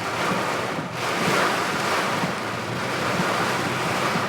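Heavy rain and strong wind beating on a car, heard from inside the cabin: a steady rushing noise that grows louder about a second in.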